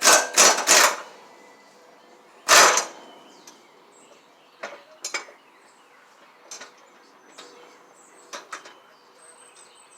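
Metal clanks from a socket wrench working on the mower deck's blade bolts: three loud clanks close together at the start, another about two and a half seconds in, then lighter scattered clicks.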